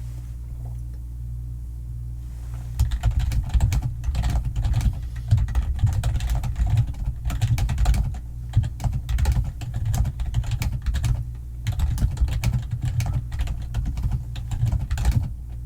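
Fast typing on a computer keyboard, starting about two and a half seconds in and going on in runs of keystrokes with short pauses, over a steady low hum.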